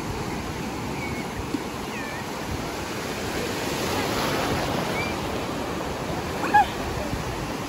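Sea surf washing and breaking steadily in the shallows. A few short high-pitched cries sound over it, the loudest about six and a half seconds in.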